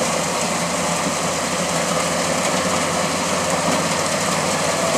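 Off-road pickup truck's engine running steadily at idle.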